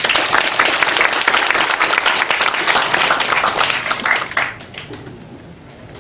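Audience applauding: many hands clapping in a dense patter that dies away about four and a half seconds in.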